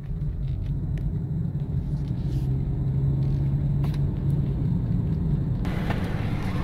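Car cabin noise while driving slowly on a wet road: a steady low tyre and road rumble, with a few light ticks of raindrops on the glass. Near the end a brighter rush of outside road noise comes in.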